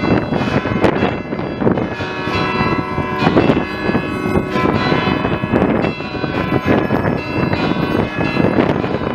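Church bells pealing, struck over and over, their tones overlapping and ringing on.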